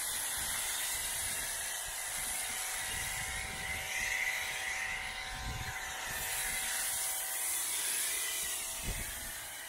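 MJJC foam cannon on a pressure washer spraying thick snow foam onto a car: a steady spray hiss with the pressure washer's motor humming underneath.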